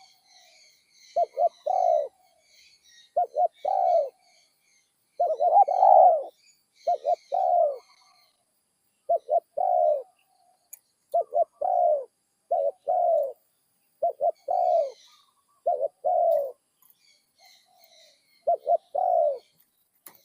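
Spotted dove cooing over and over, about ten phrases roughly two seconds apart. Each phrase is a quick stutter of short notes ending in a longer coo, a call of the type Thai dove keepers grade as 'middle voice, one kuk'. Small birds chirp faintly in the background.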